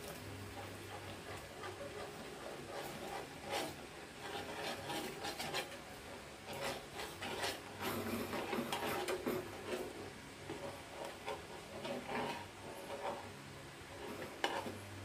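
Metal spoon stirring and scraping around a frying pan, irregular and busiest midway, as cornstarch slurry is worked into simmering sauce to thicken it.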